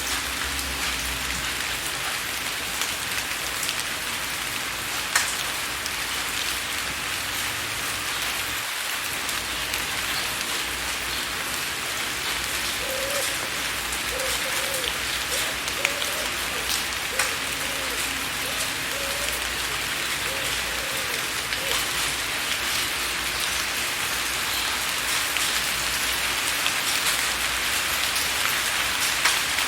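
Steady rain with drops tapping on a window pane: a dense, even hiss with many scattered sharp ticks.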